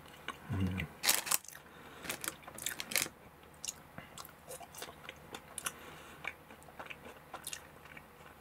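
Close-up chewing of a french fry: crisp crunches and wet mouth sounds, loudest about a second in and again around two to three seconds.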